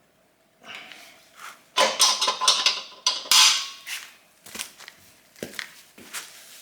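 Metal parts and tools clinking, knocking and scraping as they are handled, with a dense run of clinks and a scrape from about two to four seconds in, then a few single clicks.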